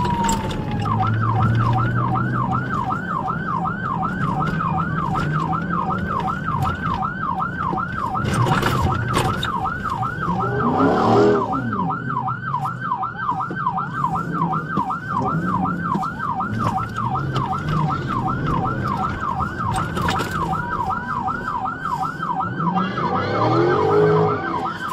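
Police car siren in a rapid yelp, sweeping up and down about three times a second without a break, over the patrol car's engine and road noise.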